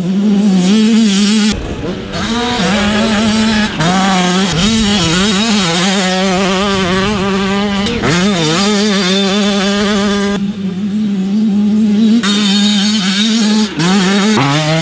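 Yamaha YZ85 85cc two-stroke dirt bike engine running at high revs while being ridden, its pitch rising and dropping with the throttle and gear changes. The sound changes abruptly a few times, as shots are cut together.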